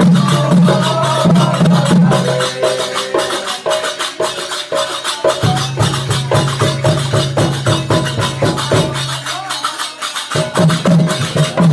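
Odia Christian kirtan: voices singing a devotional song over a khol barrel drum and rapid small percussion strokes. A deep sustained tone under the music drops out twice, once in the first half and once near the end.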